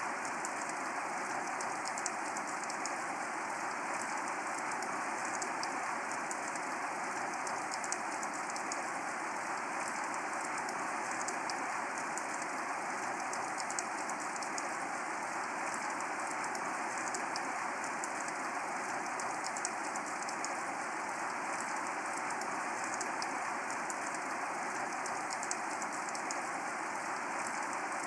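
Steady rain falling: an even hiss with fine drop ticks, unchanging throughout.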